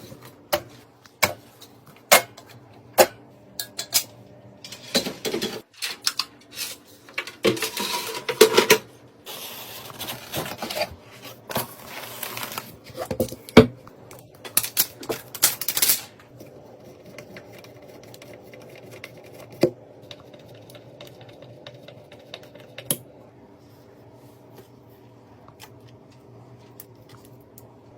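Hands working on computer hardware at close range. First comes a run of sharp clicks about one every second, then a dense clatter and rustle of parts being handled. After about 16 s it settles to a faint steady hum with an occasional click.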